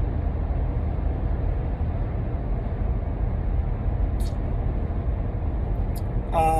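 Steady low rumble of background noise, with two faint clicks; a man's voice begins near the end.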